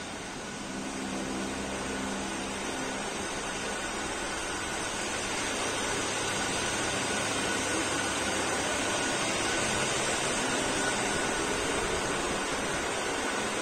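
Steady whooshing of the hall's electric wall fans and air-conditioning units, with a faint steady high whine running through it.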